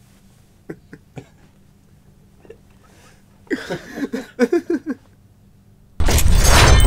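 Quiet room with a few faint ticks and a brief stretch of a man's voice or laughter in the middle; near the end, a sudden loud crash of shattering glass, a sound effect that opens the logo intro.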